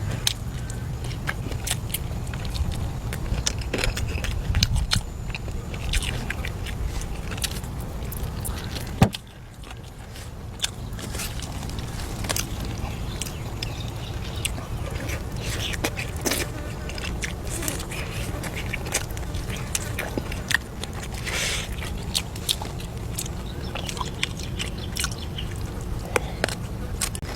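A person chewing and biting food, with many small clicks and taps over a steady low rumble, and one sharp knock about nine seconds in.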